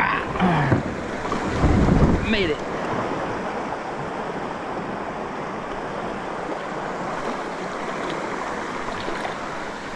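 Steady rush of water through a shallow river riffle beside a kayak. There are louder low knocks and splashes in the first two seconds or so.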